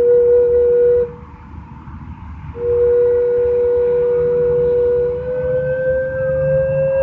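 Slow instrumental worship music of long, flute-like held notes: two steady notes sound together, break off for about a second and a half, then return, and about five seconds in the lower note stops while the upper one rises slightly. A low rumble runs underneath.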